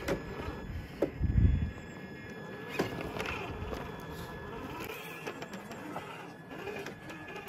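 Traxxas TRX-4 scale RC crawler creeping over loose rocks: a faint steady whine from its electric motor and gears, with stones clicking and crunching under the tyres. A low thump comes about a second and a half in.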